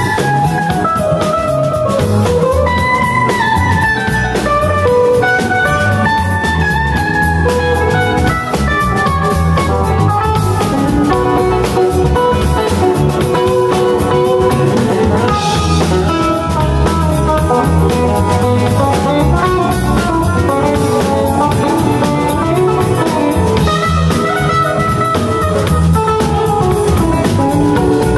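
Live band playing an instrumental passage: electric guitar lead lines over keyboard and a drum kit, with no singing.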